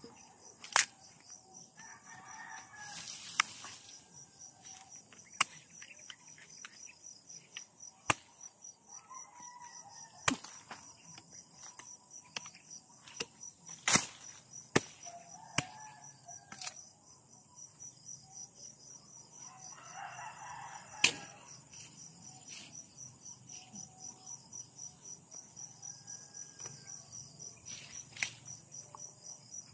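Sharp knocks of a bolo knife chopping at harvested cassava roots, about ten strikes at irregular intervals. Under them runs a steady, fast-pulsing high chirr of insects.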